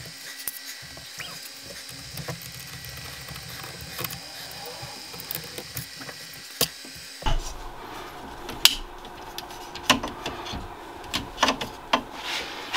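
Small clicks and taps of a hex driver and metal and plastic parts as a 3D printer's extruder is taken apart. In the second half come several sharper clicks and knocks of parts being handled on the printer.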